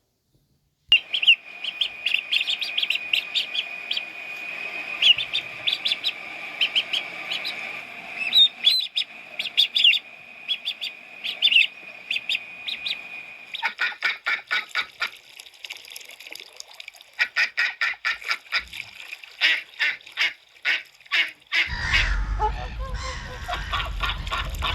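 A flock of ducks and geese calling: dense, rapid runs of quacks and honks, with a steady high-pitched tone under the calls for the first half. Near the end a low rumble joins in.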